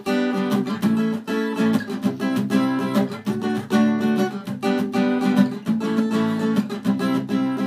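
Acoustic guitar strumming chords in a steady rhythm: an instrumental passage of an unplugged punk rock song.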